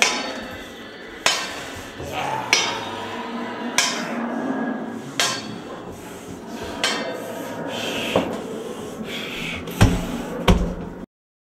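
A series of heavy knocks or bangs, about one every second or so and somewhat irregular, over a continuous background of noise. Two of the loudest come close together near the end, and then the sound cuts off suddenly.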